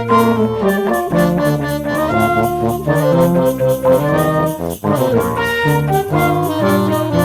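Brass band playing an up-tempo Christmas medley, several horns in harmony over a steady beat.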